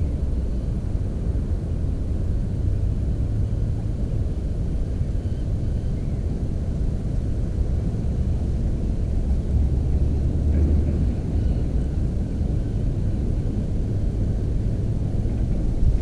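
Steady low rumble that swells and eases a little, with no bird calls standing out.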